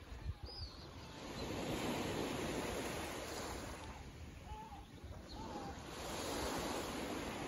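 Calm sea lapping against shoreline rocks: a soft wash of small waves that swells about two seconds in and again near the end. A few faint short bird chirps are heard over it.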